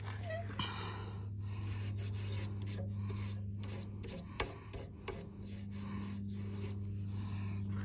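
Repeated rubbing strokes, roughly one a second, over a steady low hum.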